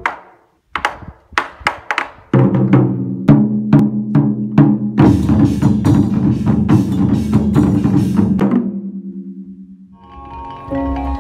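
Large barrel drums struck with sticks by an ensemble: spaced single hits at first, then a fast, dense run of strikes over a low held tone in the music. The drumming stops and fades about nine seconds in, and soft background music begins near the end.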